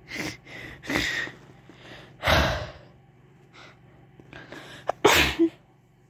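A person sneezing several times, with the loudest sneezes about two seconds in and just after five seconds.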